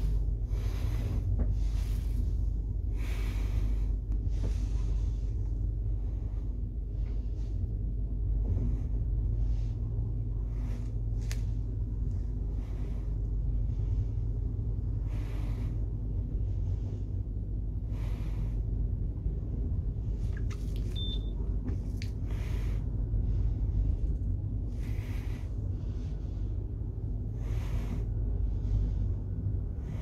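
Traction elevator car travelling in its shaft: a steady low rumble, with brief swishes and clicks every few seconds.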